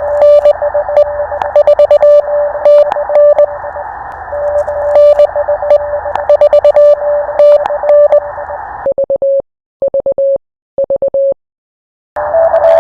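Morse code on an HF ham radio: a keyed beep sending dots and dashes over the hiss of band noise, with sharp static crackles. About nine seconds in, the hiss cuts off and a clean sidetone keys three short groups, as the radio switches over to transmit.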